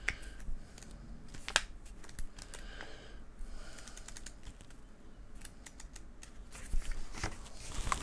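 Paper being handled: soft rustles with scattered light clicks and taps from a folded instruction leaflet and card.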